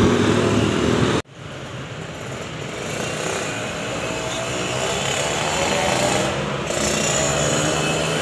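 A bus's engine running as it passes. The sound breaks off abruptly about a second in, then builds again with a gliding engine note through the middle.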